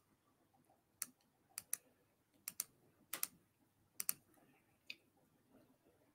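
Faint clicking at a computer keyboard and mouse: about ten sharp clicks in an irregular run over the first five seconds, several coming in quick pairs.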